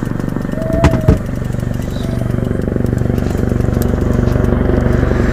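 Small boat's engine running steadily at low revs, with two sharp knocks about a second in.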